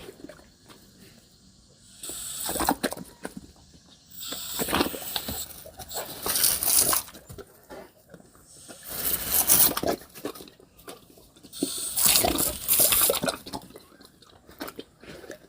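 A cat playing, making scuffling and rustling noises in about half a dozen short, noisy bursts with pauses between.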